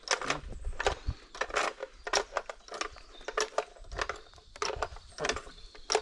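Hand-operated wire-rope winch being worked: a string of irregular ratcheting clicks and clunks, about two or three a second, as the tension on a tree held under strain is let off.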